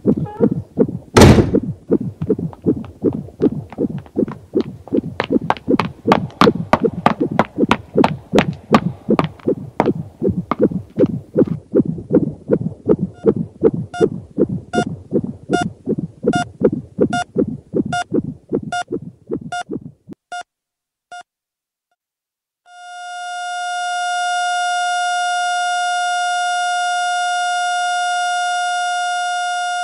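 A heavy thud, then a heartbeat thumping steadily and gradually slowing. About halfway through, a heart monitor's beeps join each beat. The beats stop, and after a brief silence the monitor sounds a continuous flatline tone, the signal that the heart has stopped.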